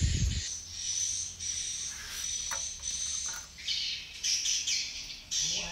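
Birds chirping over a steady high insect drone, with the bird calls busier in the second half.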